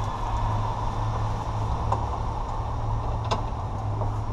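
Steady low hum with a couple of faint sharp clicks about two and three seconds in.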